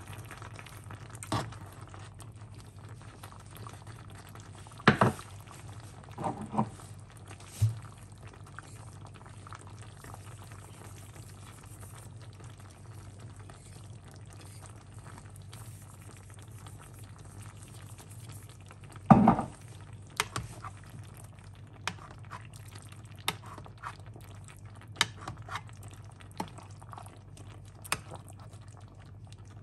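Tomato and spinach stew simmering in an enamelled pot, bubbling steadily, with a few sharp knocks of a metal spoon against the pot, the loudest about five seconds in and about two-thirds of the way through, and lighter clinks near the end.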